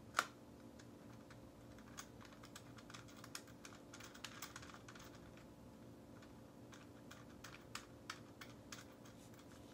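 Faint, irregular plastic clicks and taps from a phone car mount being handled as its parts are extended and adjusted, with one sharper click just after the start.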